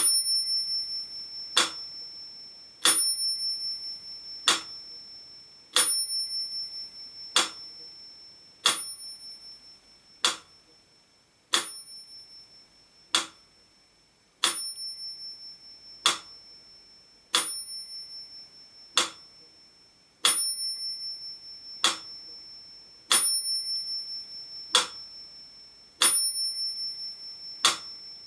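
Mechanical pyramid metronome ticking at 40 beats per minute, one sharp tick about every second and a half, with its bell ringing on every second tick to mark two beats to the bar.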